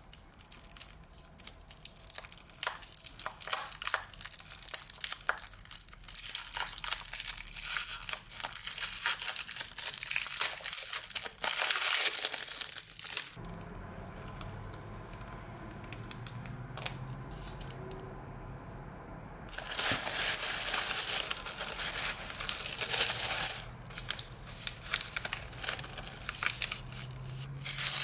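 Paper washi tape being peeled and unrolled from its roll, a dense irregular crackle of small ticks, with a loud rustle near the end as tissue paper is crinkled.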